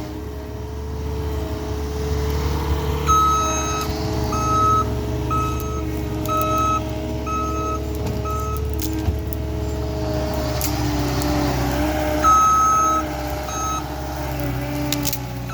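Skid steer loader's diesel engine running, its pitch rising and falling with the work, while its backup alarm beeps in runs of short beeps about one a second as the machine reverses.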